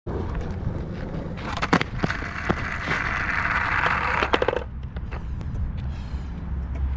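Skateboard wheels rolling over asphalt, swelling as the board passes close, with several sharp clacks of the board; the rolling cuts off suddenly about four and a half seconds in. Low wind rumble on the microphone underneath.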